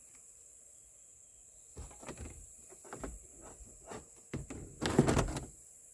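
Knocks, bumps and scrapes of a bare car dashboard shell being picked up and handled, starting about two seconds in, with the loudest clatter near the end.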